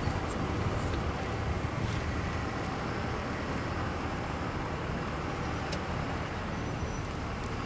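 Steady low rumbling background noise with a faint steady hum, and a few faint clicks near the end.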